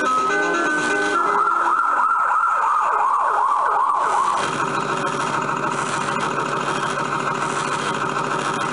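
Falgas Fire Truck 4S kiddie ride playing its sound effects through its speaker. A short jingle ends, then an electronic fire-engine siren wails rapidly up and down for about three seconds, then a steady recorded engine sound runs on.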